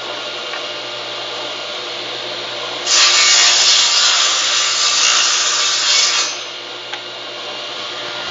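Table saw running, its blade cutting through a row of wooden pen blanks in a sled for about three seconds starting about three seconds in, then spinning free again. The cut is the loudest part.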